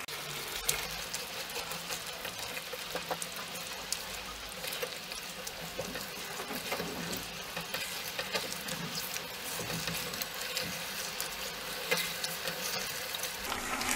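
Chicken pieces with chopped tomato and spice powders sizzling in oil in a nonstick frying pan as a silicone spatula stirs them. A steady sizzle runs throughout, with many small clicks and scrapes of the spatula through the food.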